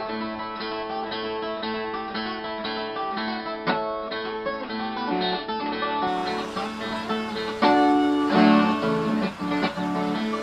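Instrumental moda de viola music on plucked strings, picked melodically. It gets louder about three quarters of the way through.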